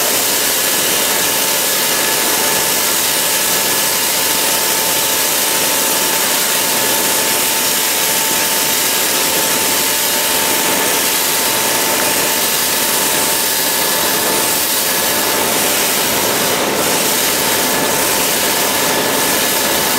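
Stainless-steel drum roasting machine running steadily as its rotating drum discharges roasted kernels down the chute into a steel tray: a constant hiss with a faint steady hum.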